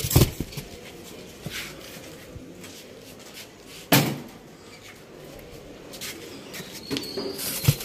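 Handling noise as kite-string reels and cardboard boxes are moved about: a few knocks at the start, one sharp knock about four seconds in, and light rustling between.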